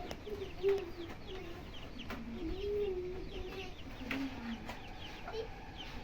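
Domestic chickens clucking, with many quick, high, falling chirps over the low wavering calls.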